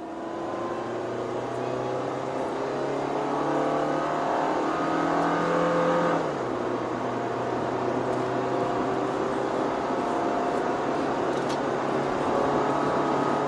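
Perodua Myvi's four-cylinder petrol engine accelerating, heard from inside the cabin over tyre and road noise. The engine note climbs steadily for about six seconds, drops sharply, then rises slowly again.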